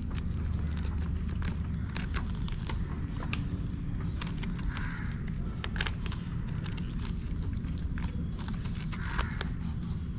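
Irregular sharp clicks and taps of live mud crabs' shells and legs as the crabs are handled and tied up, over a steady low rumble.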